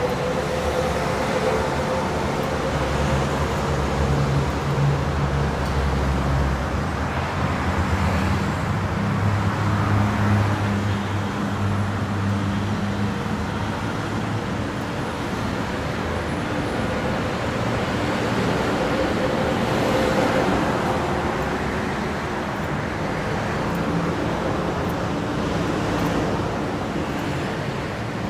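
Road traffic on a multi-lane road: a steady rush of tyres and engines that swells as vehicles pass. A low engine hum stands out for the first ten seconds or so.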